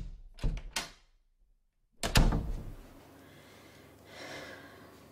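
A door being handled: two sharp clicks or knocks in the first second, then one loud thud about two seconds in.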